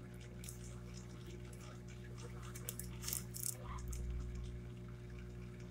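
Colored pencil scratching on paper in short strokes, loudest in a quick cluster about three seconds in, over a steady low electrical hum.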